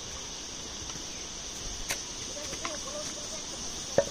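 Steady, high-pitched insect chorus in the forest, with a couple of sharp footfalls on stone steps, about two seconds in and near the end.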